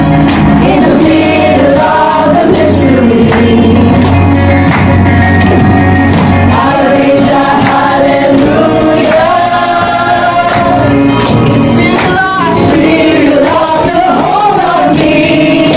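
A group of voices singing a gospel-style Christian praise song together over musical accompaniment, with regular claps.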